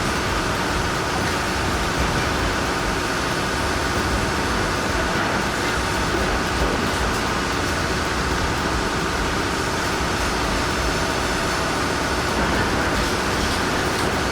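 Heavy machinery on the move: a steady, unbroken din of engines and rolling noise that does not rise or fall.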